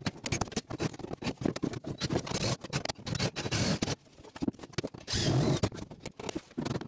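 Irregular scraping, clicking and clattering as tools and metal are handled on the bare sheet-metal floor pan of a truck cab, with a short louder noisy burst about five seconds in.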